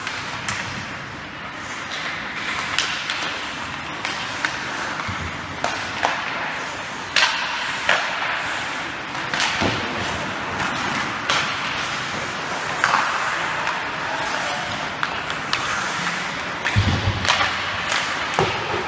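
Ice hockey play on an indoor rink: skates scraping the ice over the hum of the rink, with sharp clicks and knocks of sticks on the puck scattered throughout and a heavier thud near the end.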